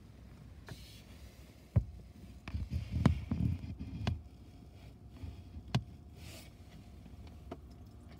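Handling noise inside a car: a sharp click, then a cluster of knocks and low rumbling a couple of seconds in, and two more single clicks later.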